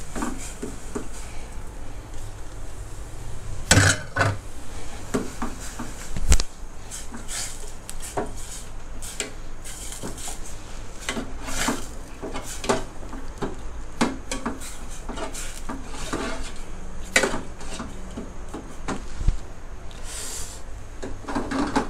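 Metal spoon scraping and clinking against an aluminium saucepan, irregular knocks and scrapes, while minced pork is stirred and broken up in hot water.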